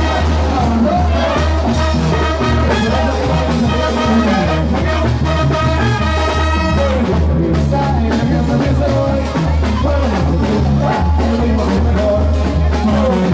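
Live banda music: a brass band plays loudly over a strong, steady bass pulse.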